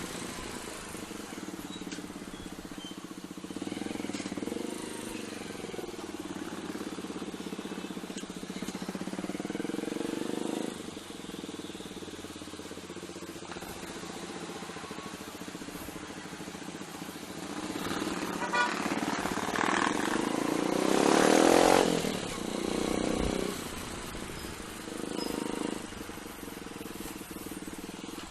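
Motorcycle engine running steadily, with traffic noise around it; a louder swell of vehicle sound builds about two-thirds of the way through and then fades.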